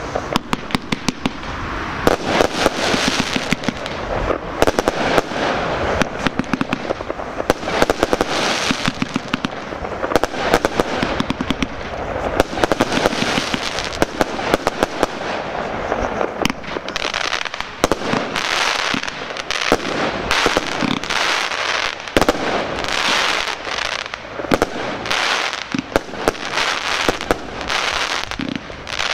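Aerial fireworks going off in quick succession: many sharp bangs over a continuous crackle of bursting shells, with no pause.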